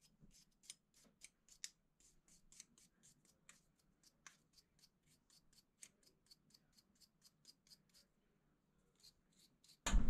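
Faint, quick scratching strokes, about three or four a second, of a furnace flame sensor rod being scrubbed clean with an abrasive. A sudden loud noise starts just before the end.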